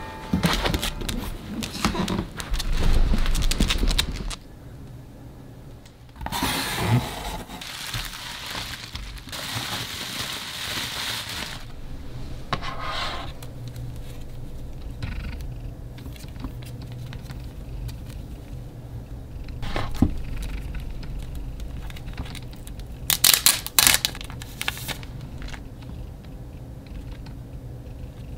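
Unboxing by hand: cardboard and plastic packaging rustling and crinkling in irregular bursts, with some tearing and scraping. A few short, sharp rustles come in a cluster about three-quarters of the way through.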